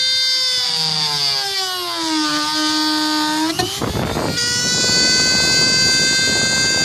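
Power drill with a 1-inch bit boring a hole in a plastic kayak deck: the motor's whine sinks in pitch as the bit bites into the plastic, a harsh grinding rasp comes about three and a half seconds in as it cuts through, and the motor then spins back up to a steady higher whine.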